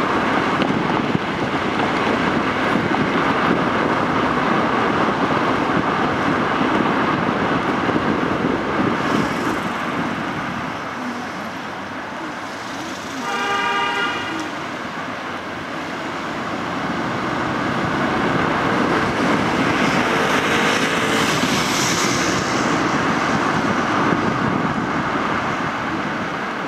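Steady road and traffic noise from a car driving along city streets, easing off for a few seconds in the middle. About halfway through, a vehicle horn sounds once for about a second.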